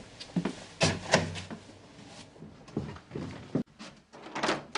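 A door being handled in a small room: a series of short knocks and thuds, with a sudden break about three and a half seconds in.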